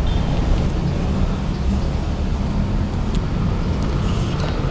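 Steady road traffic noise: a continuous low rumble of passing vehicles.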